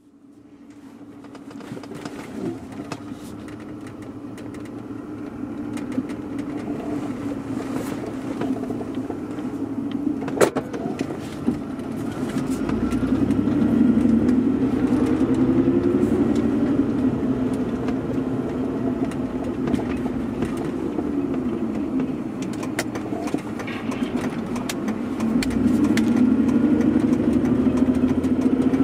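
A car driving, with steady engine and road noise that fades in at the start. The engine pitch rises as the car speeds up about halfway through and again near the end, and there is a sharp click about ten seconds in.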